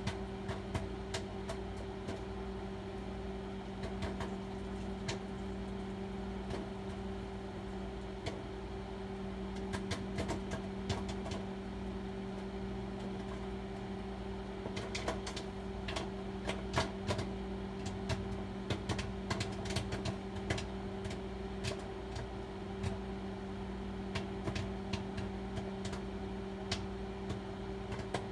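Microwave oven running with a steady hum while a bag of microwave popcorn starts popping. The pops come as scattered sharp pops, sparse at first and more frequent from about ten seconds in.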